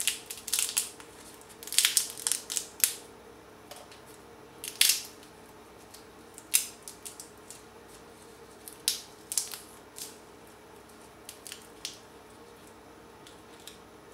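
Brittle shell of a pan-roasted chestnut crackling and snapping in irregular bursts as fingers peel it off the kernel, over a faint steady hum.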